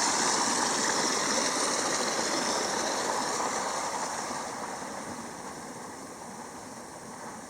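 Rushing water of a forest stream, a steady noise that fades gradually as it is left behind.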